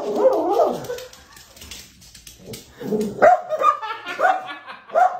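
Small shaggy dog barking: a wavering vocal sound in the first second, then about four short, sharp barks in the last two seconds.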